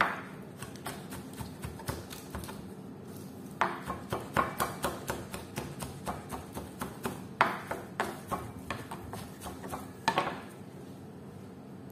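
Knife chopping fresh chicken breast into very small pieces: quick repeated chops, a few a second with short pauses, stopping shortly before the end.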